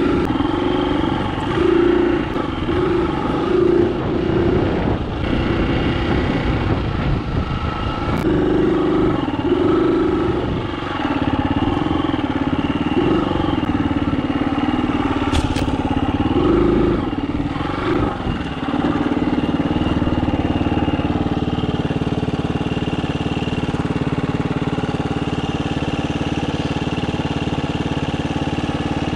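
Dirt bike engine revving up and down in short blips as the bike is ridden over a rough trail. About 19 seconds in the bike comes to a stop and the engine settles into a steady idle.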